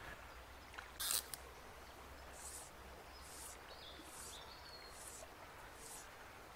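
Fly line hissing: a sharp swish about a second in as the line lifts off the water on the strike, then soft, even strokes of line roughly every two-thirds of a second as a hooked trout is played on a fly rod.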